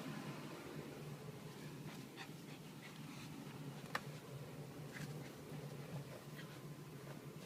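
West Highland White Terrier searching about, with faint breathing and sniffing and scattered soft ticks. A single sharp click about four seconds in is the loudest sound. A steady low hum runs underneath.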